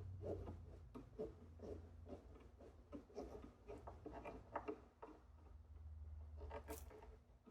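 Faint, irregular clicks and light taps from small parts and hand tools being handled during electrical wiring work, over a low steady hum.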